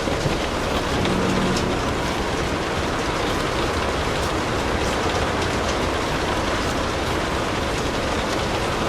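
Steady rain falling, an even continuous hiss with a few faint ticks of drops.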